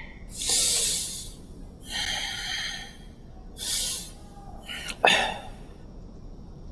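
A man breathing heavily: four loud, breathy exhalations about a second and a half apart, the first the strongest, with a sharp click about five seconds in.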